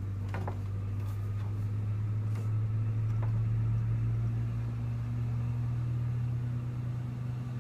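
A steady low hum from some running electric motor or appliance in the room, with a few faint clicks and taps from the box fan being turned around.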